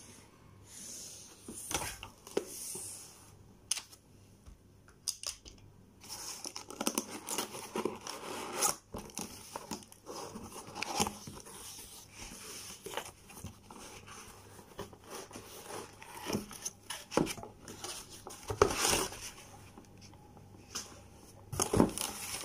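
Opening a cardboard laptop box: packing tape being cut and torn, and packaging crinkling, with irregular clicks and scrapes of handling.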